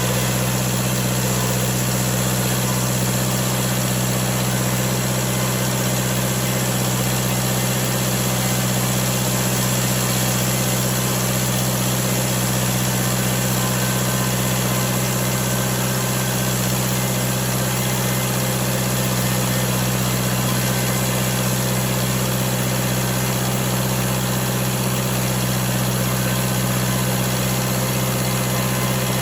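Sawmill engine running at a steady speed, holding one low, unchanging tone.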